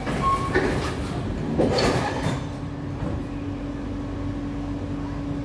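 Saloon doors of a C151A metro train sliding shut, with two bursts of door movement in the first two and a half seconds. After that a steady low hum from the train carries on.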